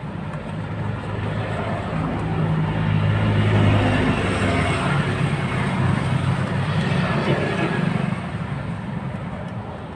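A motor vehicle's engine passing close by, a low hum that grows to its loudest about three to four seconds in and then fades, over steady street traffic.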